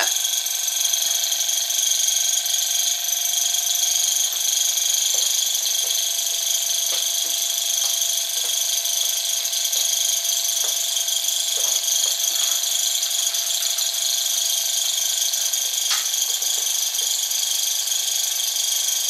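Small Stirling engine running fast, its flywheel driving a little generator through a drive belt: a steady high-pitched whir with a light mechanical rattle and occasional faint ticks.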